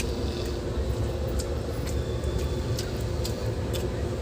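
Passenger train running: a steady low rumble with scattered light clicks and rattles.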